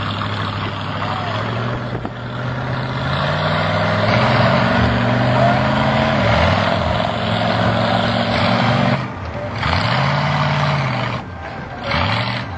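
Monster truck engine revving hard and easing off several times as the truck climbs onto and over a mound of crushed cars, its pitch dropping sharply about nine seconds in and again near eleven seconds before rising once more.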